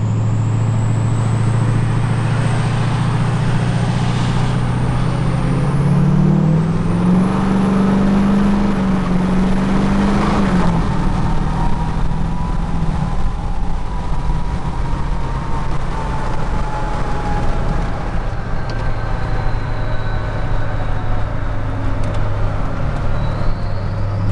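LBZ Duramax 6.6-litre V8 turbo-diesel with a Garrett PowerMax Stage 2 turbo, heard from inside the cab under hard acceleration. A high turbo whistle climbs steadily in pitch over the engine drone for about ten seconds, then falls away as the engine pitch drops back to a steady highway cruise with road noise.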